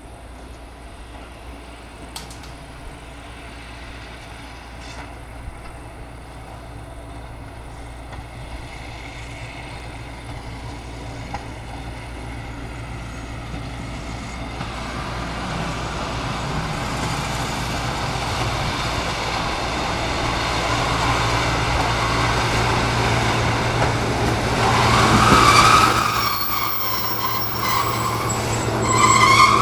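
SNCF X2800 diesel railcar approaching and growing steadily louder, its engine giving a steady low hum. A high metallic squeal comes from the wheels and brakes twice near the end as it slows into the platform.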